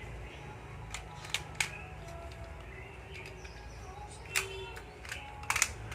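A few sharp, small clicks and taps from handling a battery clock movement and pressing on its second hand: single clicks in the first half, then two close together near the end, over a low steady hum.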